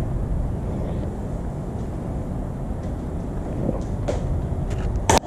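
Rebuilt Chevy 305 small-block V8 running on a test stand with a steady, rough low rumble; the owner thinks it needs more gas before it will idle. A couple of sharp clacks near the end.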